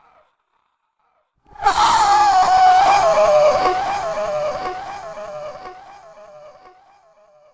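A long, high, wavering vocal cry used as a scary sound effect, starting suddenly about a second and a half in, sliding slightly lower in pitch and slowly fading away.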